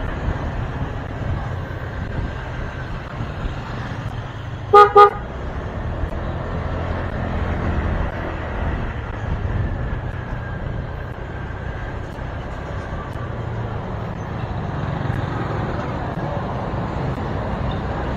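Motorcycle horn beeping twice in quick succession about five seconds in, very loud and close, over the steady low rumble of the motorcycle riding through traffic.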